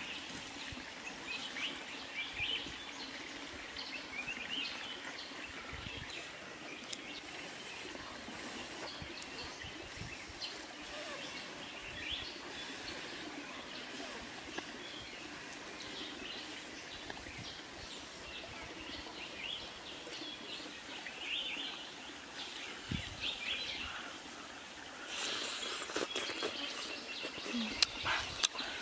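Wild birds chirping now and then, short scattered calls over a steady background hiss of forest ambience. Near the end a louder rustling stretch with a few sharp clicks.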